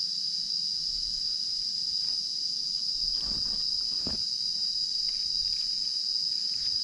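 Steady high-pitched chorus of forest insects, with a few faint rustles of dry leaf litter around the middle.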